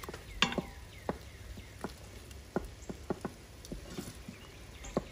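A wooden spoon stirs a thick tomato and onion mixture sautéing in the stainless steel inner pot of an Instant Pot. It makes irregular sharp clicks, about two a second, as it knocks and scrapes against the pot, over a soft sizzle.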